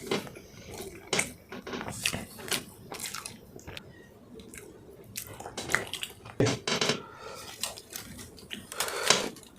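A person chewing food with wet, irregular mouth clicks and smacks.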